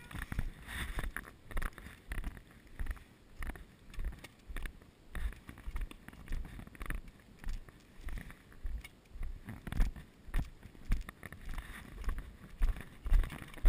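Footsteps of a person walking on a concrete path, heard as regular low thumps about two a second, with wind rushing on the microphone.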